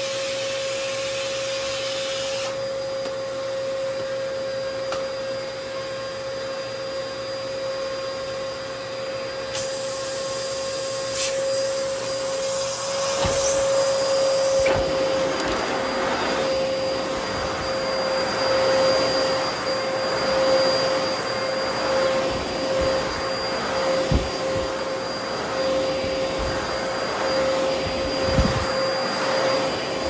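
Dyson DC14 upright vacuum cleaner running on carpet, its motor giving a steady whine over the rush of suction. From about halfway the sound grows rougher and a little louder as the machine works the carpet, with a few low thumps.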